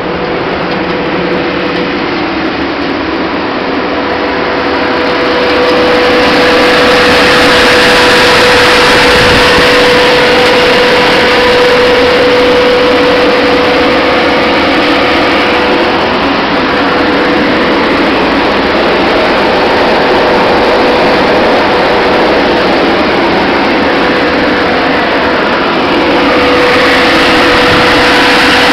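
Electric seed cleaning machine running under power, its motor and fan making a loud, steady mechanical noise with a constant whine running through it. It gets louder about five seconds in.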